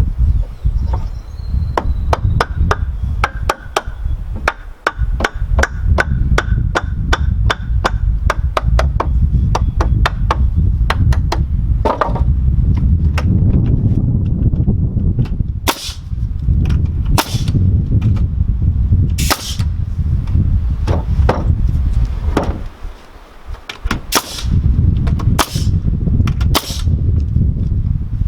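DeWalt DW325PL framing nailer driving nails into 2x4 lumber. A fast run of sharp clicks fills the first ten seconds, then single loud shots come every one to three seconds, over a steady low rumble.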